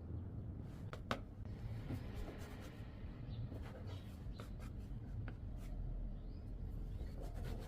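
Kitchen handling sounds of dough being worked: soft rubbing and scraping with scattered small clicks and taps, and one sharper click about a second in, over a low steady hum.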